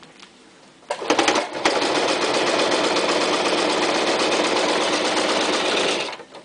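Toyota Super Jeans J34 sewing machine stitching through four layers of tough vinyl. It starts about a second in with a few slow, separate stitches, runs steadily at speed, and stops near the end.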